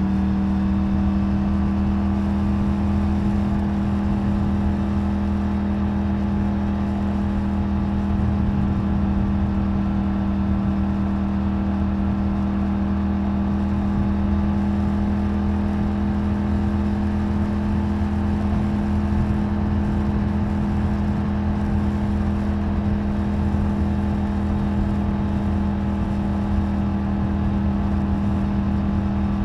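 Triumph Tiger 900 Rally Pro's three-cylinder engine through its stock exhaust, heard onboard while cruising at a steady, even pace. An annoying buzzing comes from the rattling licence plate.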